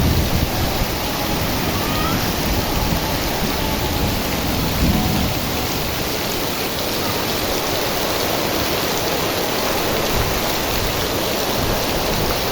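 Torrential rain pouring down in a windstorm: a dense, steady hiss, with heavier low rumbles of wind near the start and about five seconds in.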